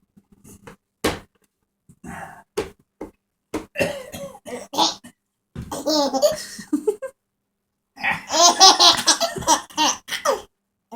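An adult's fake coughs, each followed by a baby laughing in short bursts. The laughter is loudest from about eight seconds in.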